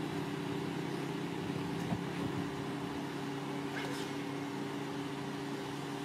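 Steady low hum of a car idling at a standstill, with a few faint clicks near the halfway point.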